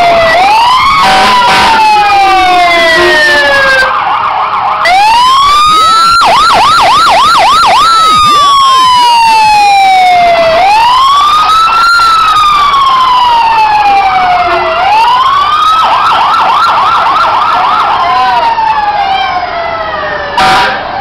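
Fire engine siren sounding loud and close as the truck passes. It runs a slow wail, each tone falling over a couple of seconds and then rising back, and twice breaks into a fast yelp.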